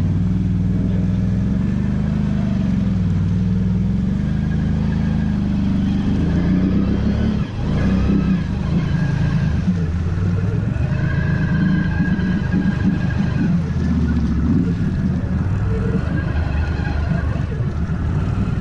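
ATV engine running under riding load, its pitch rising and falling with the throttle, with a brief drop about seven and a half seconds in.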